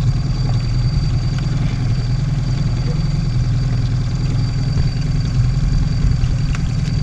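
Boat motor running steadily at trolling speed, a continuous low engine hum with a thin steady high whine over it.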